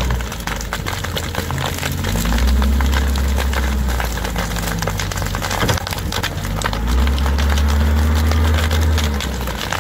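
Case W20F wheel loader's diesel engine working, its low note swelling twice under load, about two seconds in and again about seven seconds in, over dense crackling and snapping from the burning dry grass and brush that the bucket pushes into.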